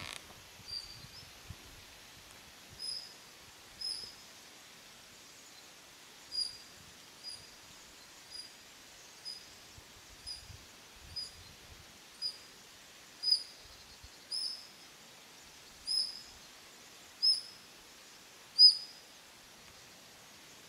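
Eurasian otters calling with short, high-pitched whistles, repeated roughly once a second, growing louder in the second half.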